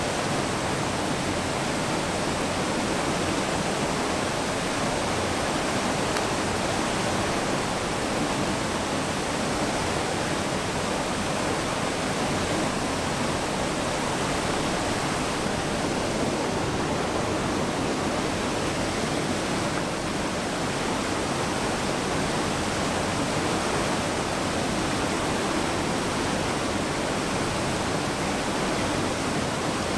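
Small waterfall pouring into a creek pool: a steady, unbroken rush of water.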